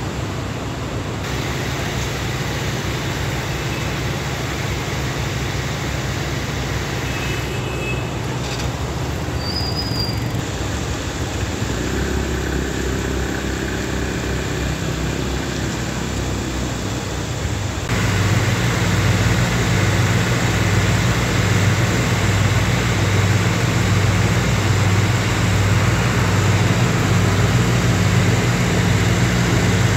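Steady street and floodwater noise, changing abruptly at each cut. About two thirds of the way in it gets louder: a steady engine hum under water gushing from a pump's discharge pipe.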